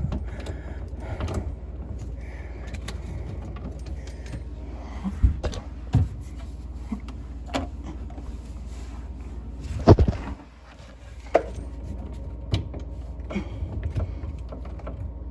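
Scattered clicks and knocks of plumbing fittings and hoses being handled and fitted under a sink cabinet, with one louder knock about ten seconds in, over a steady low hum.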